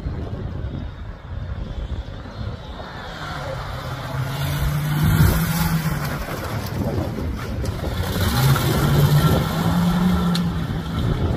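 Comp safari buggy's engine revving hard off-road, its note held high twice a few seconds apart, with dirt and sand thrown by the tyres.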